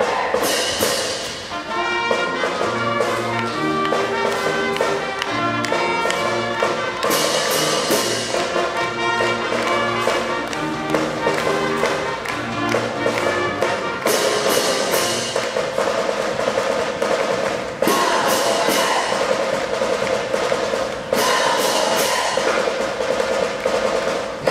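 A small brass-and-drum pep band playing a school fight song: trumpets and other horns hold loud chords over a steady drum beat, with fresh full-band chords striking in about two-thirds of the way through and again near the end.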